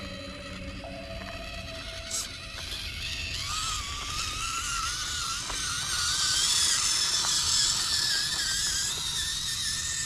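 Small electric motor and geared driveline of a 1:24 scale RC trail buggy whining as it crawls over rocks and roots. The whine wavers with throttle and load and jumps higher in pitch about three and a half seconds in, with a sharp click about two seconds in.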